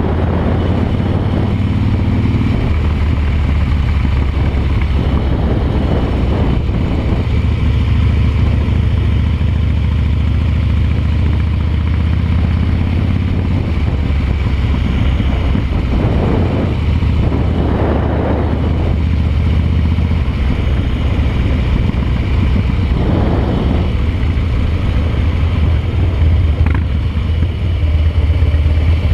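Harley-Davidson V-twin motorcycle engine running steadily while riding along at cruising speed, heard from the handlebars. Wind buffets the microphone a few times in the second half.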